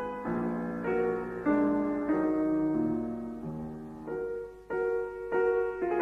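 Background piano music: notes and chords struck in a slow, steady rhythm, each left to ring and fade.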